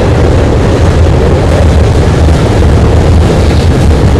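Loaded freight cars of a Norfolk Southern manifest train rolling over a steel trestle, a loud, steady, deep rumble with no breaks.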